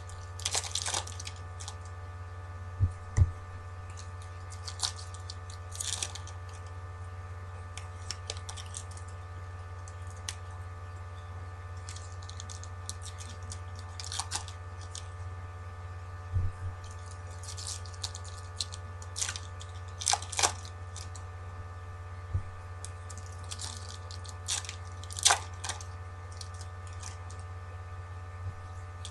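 Thin foil wrappers of 2013 Topps Opening Day baseball card packs being ripped open and crumpled by hand: irregular crinkling and tearing, with a few soft thumps, over a steady low hum.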